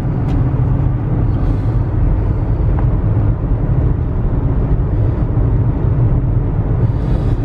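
Steady low drone of engine and road noise inside the cabin of a 2009 Volkswagen Touareg TDI, with its 3.0-litre V6 diesel, cruising at 65 mph at about 2,000 rpm. It is climbing a mountain grade while towing a trailer.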